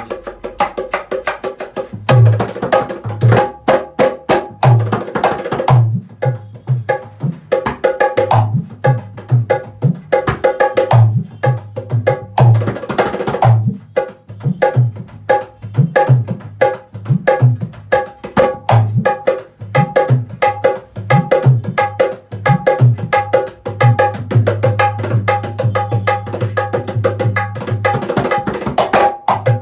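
Dholak, the two-headed Indian barrel drum, played by hand in a fast rhythm, with ringing treble-head slaps over deep booming bass strokes, as a tone check of the drum. The full rhythm comes in about two seconds in, and the bass rings out in a longer held note near the end.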